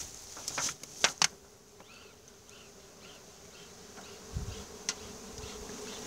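Honeybees buzzing at an opened hive, a steady hum that grows louder toward the end, with a few sharp clicks about a second in as a hive tool works at the lid.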